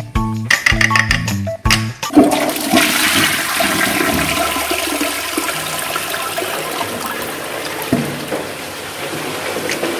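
Background music with a bouncy beat, then about two seconds in a toilet flushes: water rushes in from the rim and swirls loudly down the bowl, the rush easing off slowly.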